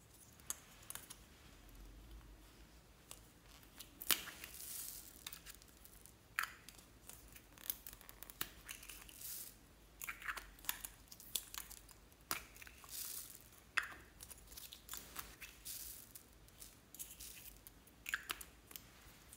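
Clear plastic capsules of foam beads being handled and pried open, giving sharp plastic clicks. Between the clicks come short hissy bursts as the small foam balls pour out and rattle onto the slime.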